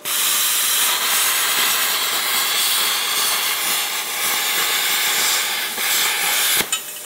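Handheld plasma cutter cutting through steel plate: a loud, steady hiss of the arc and air jet that starts abruptly and cuts off sharply about six and a half seconds in, leaving a softer hiss.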